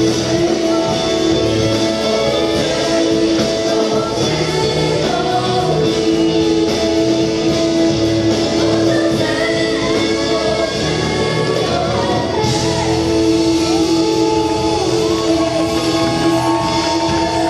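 Gospel choir singing live with a female lead vocalist, backed by acoustic guitar and a band through a stage sound system.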